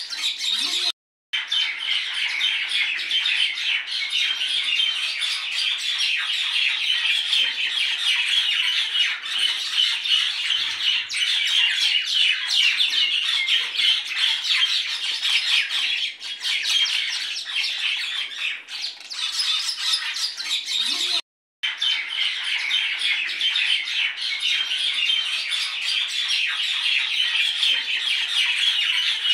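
A dense chorus of small birds chirping and calling without a break, cut off by two brief gaps of silence, about a second in and about 21 seconds in.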